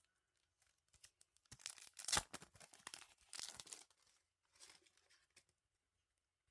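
Packaging being torn open and crinkled by hand: a run of tearing and rustling that peaks about two seconds in, then a shorter rustle near the end.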